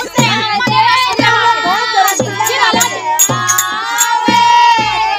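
Women singing a Holi folk song together in long held notes, over a barrel hand drum beating about twice a second, with sharp high ticks keeping time.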